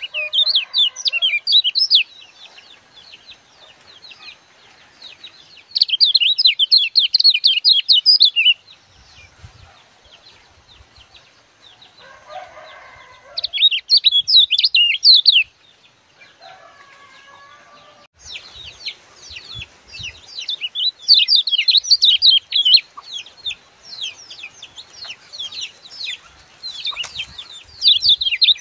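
Common iora (kecial kuning) singing in repeated bouts of rapid, high-pitched chattering notes, each a couple of seconds long, with short pauses between them. Near the end the bouts run together into an almost unbroken stretch of song. Twice in the pauses there are brief lower-pitched calls.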